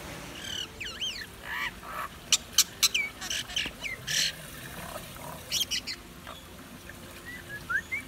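Common myna calling: a varied run of whistles that bend up and down, sharp clicks and short harsh notes, in bursts.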